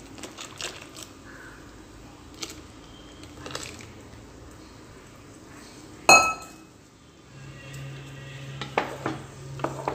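Spoons clinking and knocking against a metal cooking pot as buttermilk is poured in and stirred through a curry. About six seconds in there is one loud metallic clank that rings briefly. Near the end come a quick run of knocks from a ladle stirring against the pot, over a low steady hum.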